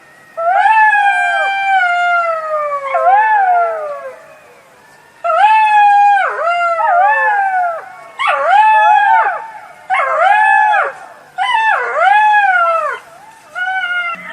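Jackal howling. One long wavering wail slides down in pitch, then comes a run of shorter howls that rise and fall, about one a second, with short gaps between them.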